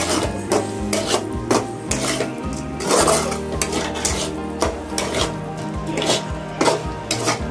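Metal ladle scraping and clanking against a metal kadai in repeated stirring strokes, turning dry-roasted pepper chicken.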